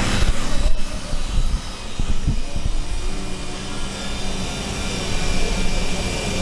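Handheld corded electric rotary tool running steadily as it is worked against a wooden carving to detail it.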